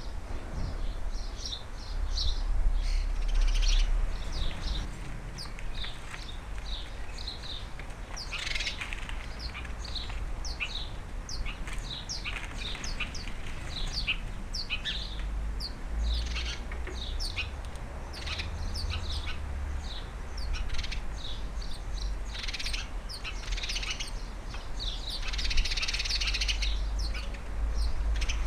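Garden birds chirping and tweeting: a steady run of many short, high calls, with denser chatter in places, over a low rumble.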